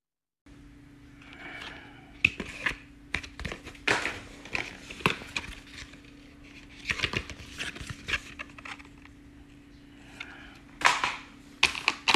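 Handling noise from a boxed USB cable being unpacked: irregular sharp clicks and taps with brief plastic-like rustling and a steady faint hum underneath.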